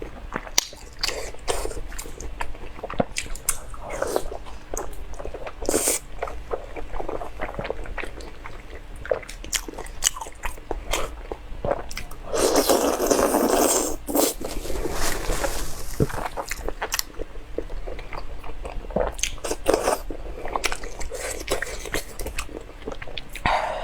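Close-miked eating: a person biting into and chewing seafood, with many short crunches and clicks throughout. A louder rush of noise lasting about two seconds comes midway.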